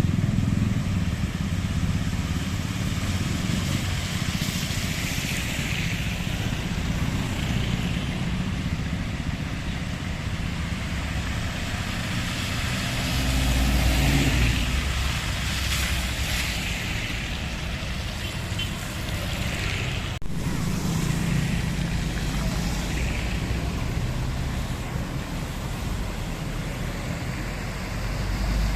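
Road traffic moving slowly along a flooded street: car and motorcycle engines running under a steady hiss of tyres through water.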